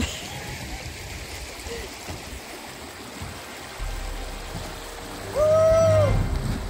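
Water running steadily, with one loud drawn-out pitched call about five and a half seconds in that lasts about a second.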